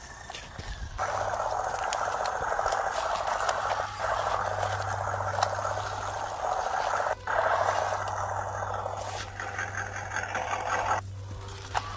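WPL C24 RC crawler truck driving over dry leaves: a fast buzzing from its electric motor and gears with crunching and rattling. The sound breaks off briefly twice and stops near the end.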